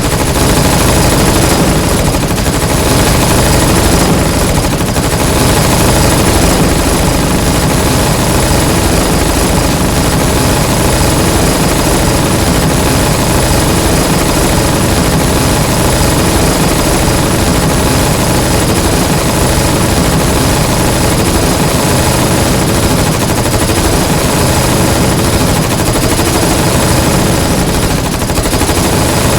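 Dense, continuous submachine-gun fire from many guns at once, without a break.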